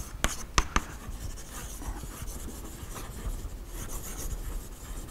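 Chalk writing on a blackboard: a few sharp taps of the chalk against the board in the first second, then quieter scratching strokes.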